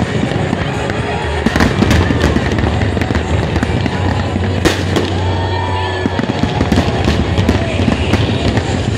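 Aerial fireworks display going off: a dense, continuous crackle and rumble of shells bursting, with sharp single bangs about a second and a half in and again about halfway through. Music with a steady low bass and the voices of a crowd sit underneath.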